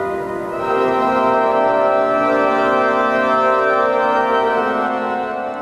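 Cathedral pipe organ holding sustained chords, swelling to a fuller, louder chord about half a second in, then beginning to die away near the end.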